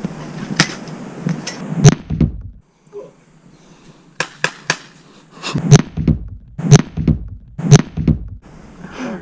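Sharp knocks and thuds: a few scattered in the first two seconds, a quick run of three about four seconds in, then three loud thumps evenly spaced about a second apart.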